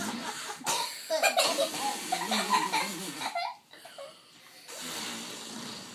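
Young children laughing and giggling for about three seconds, then a pause, then a softer, steady breathy sound near the end.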